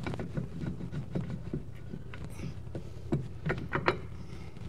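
Irregular light clicks and knocks as an EMPI disc brake caliper is worked off its rotor by hand, with a cluster of sharper knocks about three seconds in, over a steady low hum.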